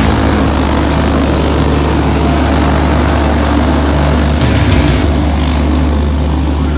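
Engines of several dirt-oval racing karts running at speed as they lap the track, a steady buzzing drone.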